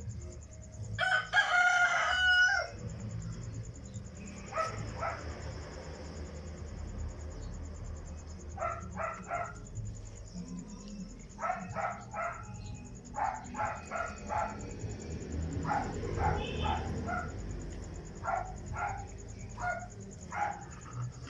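A rooster crows once, loud and drawn out, about a second in. Short clucking calls follow in quick groups of two to four, over a steady low hum.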